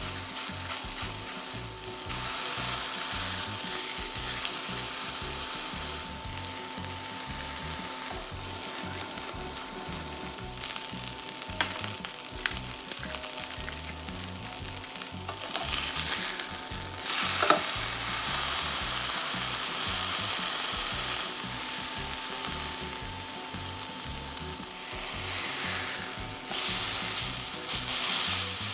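Food sizzling steadily in a hot frying pan, with a few light clicks and one sharper knock a little past the middle, likely a utensil against the pan.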